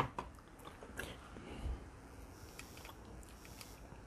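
Faint clicks and soft knocks of toy train parts being handled and set down on a workbench.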